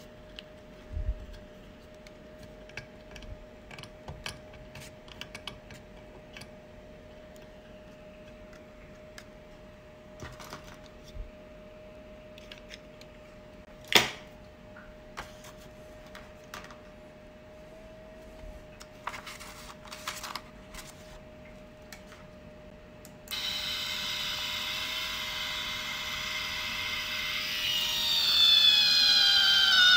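Scattered clicks and handling noises as the line and rig are set up, then about 23 s in a small 12 V geared DC motor with a 37 mm reduction gearbox starts with a steady whine. The whine grows louder and drops in pitch near the end as the motor pulls the line taut under rising load.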